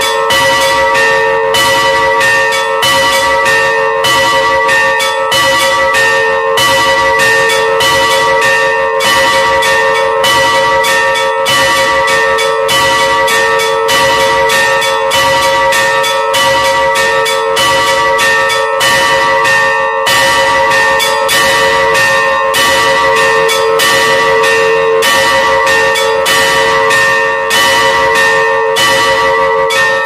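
Three Russian church bells rung in a continuous peal by one ringer pulling ropes tied to their clappers. The strikes come quickly and steadily, several a second, each bell's tone ringing on and overlapping the next. This is a festive peal rung for a procession of the cross.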